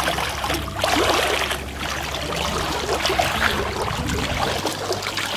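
Shallow muddy water sloshing and splashing irregularly around the legs and a cast net as it is hauled through the water by hand.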